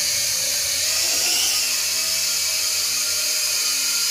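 Small FPV quadcopter's motors and propellers whining steadily in flight, the pitch wavering slightly with the throttle.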